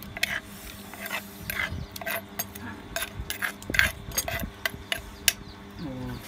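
Kitchen utensils clinking and knocking against dishes in irregular sharp taps.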